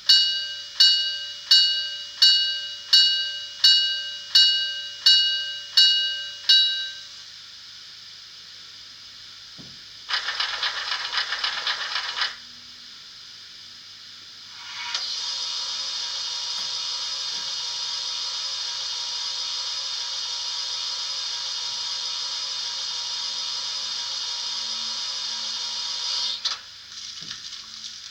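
Steam locomotive sounds from a Loksound Micro model-railway sound decoder playing through its small oval speaker: about ten evenly spaced bell strikes, then a couple of seconds of rapid rhythmic hissing, then a long steady steam hiss that cuts off near the end.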